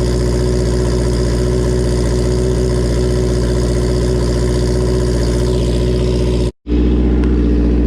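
Honda CB650R inline-four idling steadily with a loud, open note through a straight-through Kleber Atalla full exhaust, its dB killer removed; the engine is warming up after a cold start. The sound drops out for an instant about six and a half seconds in.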